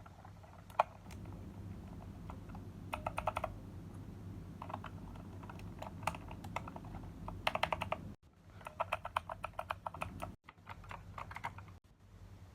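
Typing on a mechanical keyboard in quick bursts of keystrokes, several clicks a second, with short pauses between bursts. A steady low hum runs underneath, and the sound cuts out abruptly three times in the second half.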